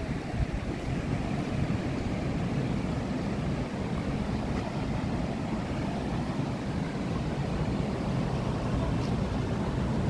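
Steady rumble of ocean surf breaking on the beach, with wind buffeting the microphone.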